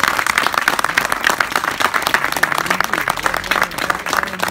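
A crowd applauding steadily, with a man's voice faintly beneath it in the second half.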